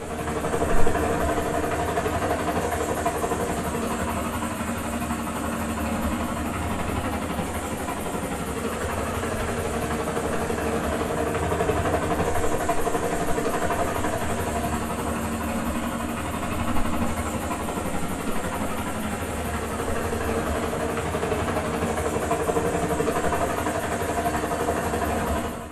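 Helicopter sound from the Dolby Atmos demo disc, played through a Samsung Q950A Dolby Atmos soundbar and its subwoofer. The engine and rotor run steadily, with a brief louder swell about a second in. This is the demo that pans a helicopter around the listener.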